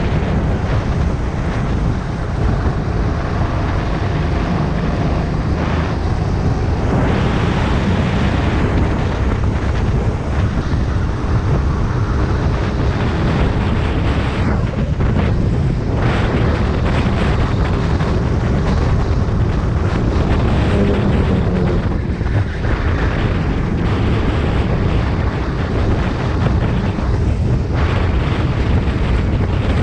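Rental kart engine running at racing speed, heard onboard under heavy wind buffeting on the camera microphone.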